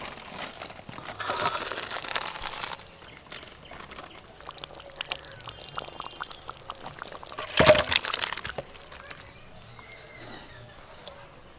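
Thick vermicelli payesh poured from a cooking pan into a steel bowl, with a dense pouring hiss for about two seconds near the start. Scattered clicks and scraping of utensils follow, with one loud metallic clank about seven and a half seconds in.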